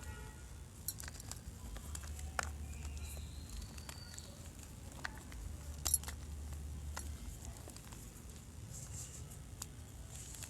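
Gym chalk being crushed and crumbled: scattered dry crunches and crackles at an irregular pace, over a low steady hum.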